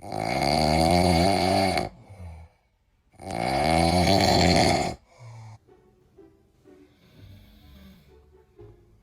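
Loud snoring: two long snores of about two seconds each, a little over a second apart, followed by only faint sound.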